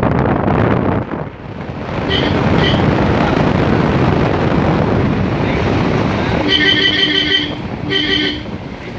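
Road vehicle driving with wind rushing over the microphone. A horn sounds two short beeps about two seconds in, then one longer blast and a shorter one near the end.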